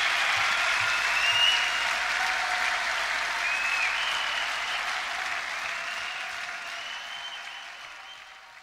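Concert audience applauding and cheering, with a few shrill whistles, fading away steadily over the last few seconds.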